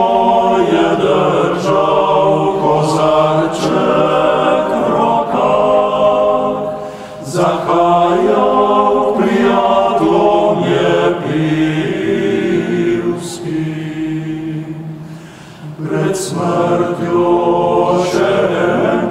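Male a cappella vocal octet singing a traditional Slovenian song in close harmony. The sustained chords break briefly between phrases about seven and fifteen seconds in.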